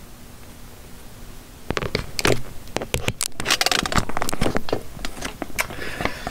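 Handling noise: after a faint hiss with a low hum, a rapid, irregular run of clicks, knocks and scrapes starts about two seconds in, as the camera and things on the desk are moved about.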